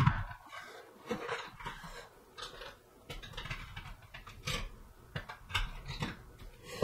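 Hands rummaging through small items: scattered clicks and short rustles as things are moved and picked over.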